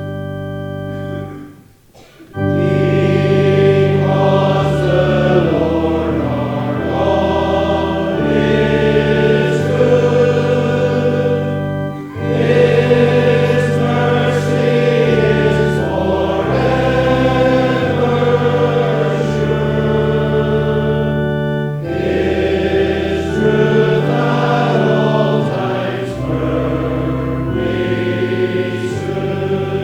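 Congregation singing with pipe-organ accompaniment, in phrases over held organ chords; the music breaks off briefly about two seconds in, then the singing resumes.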